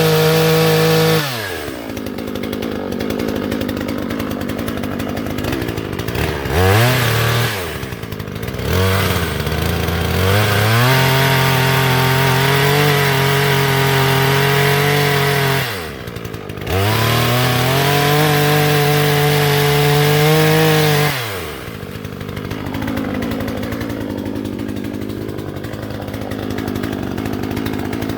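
Hyundai HYC6200X 62cc two-stroke petrol chainsaw revving to full throttle in long stretches, cutting wood, and dropping back to idle between cuts: once about a second in, briefly at about 16 s, and again from about 21 s. There are two short blips of throttle in between.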